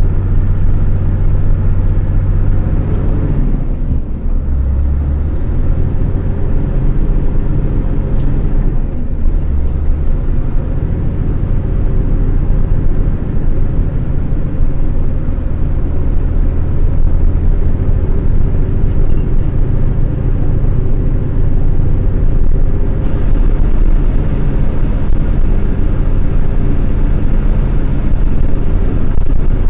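Logging truck's diesel engine and road noise, a loud steady low rumble heard from the dashcam. The engine note shifts briefly about four seconds in and again about nine seconds in.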